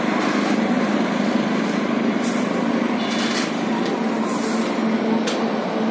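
Steady highway traffic noise, with a few short hisses about two, three, four and five seconds in.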